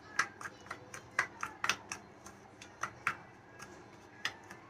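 Steel spoon clinking and scraping against a small ceramic bowl while stirring a thick, dryish masala of gram flour, spices and mustard oil: irregular sharp clicks, a few a second.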